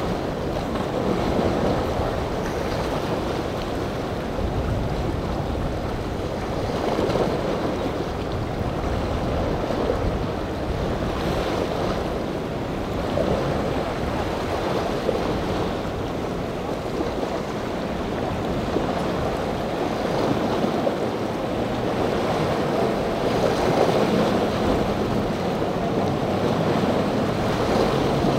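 Steady wash of breaking surf and choppy water with wind buffeting the microphone. The low hum of the center-console boat's outboard engines comes in faintly during the last few seconds as the boat gets closer.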